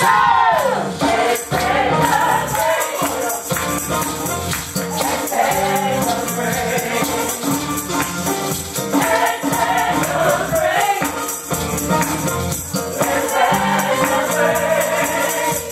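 Gospel singing over a steady, jingling percussion beat, with the congregation clapping along.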